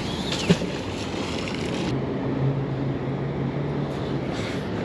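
Steady wind noise on the microphone with a low hum of traffic, and one short knock about half a second in.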